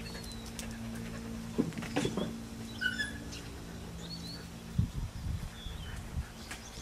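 Puppies playing, giving a few faint short high squeaks, with a few soft knocks, over a steady low hum.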